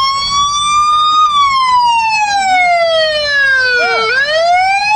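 Police siren on a car sounding a slow wail. The pitch rises for about a second, falls steadily for about three seconds, then rises again near the end.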